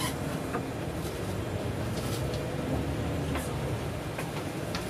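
Inside a moving city bus: the steady low drone of the bus engine and tyres on a wet road, with a few faint clicks scattered through it.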